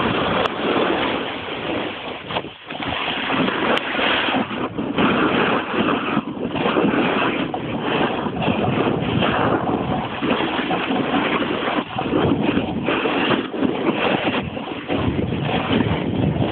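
Wind blowing on the camera microphone together with a snowboard sliding and scraping over packed snow while riding downhill: a loud, rushing noise that rises and falls, with brief lulls about two and a half seconds in and near the end.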